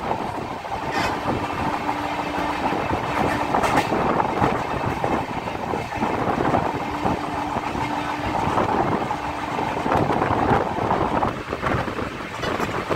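Running noise of a moving passenger train heard from its open coach doorway: a steady rumble of wheels on rail mixed with rushing air, with a few sharp clacks and a faint steady tone that comes and goes twice.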